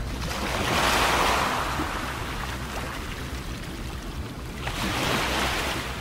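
Small waves washing against an ice-edged rock breakwater, surging twice, about a second in and again near the end, over a steady low rumble of wind on the microphone.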